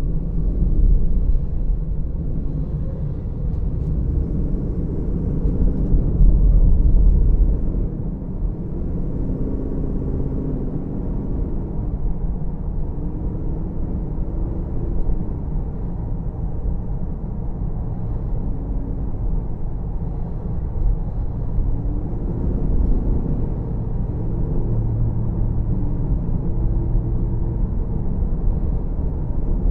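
Car driving on a city street: steady low rumble of engine and road noise, with an engine pitch that rises and falls several times as the car speeds up and slows, louder for a moment about six seconds in.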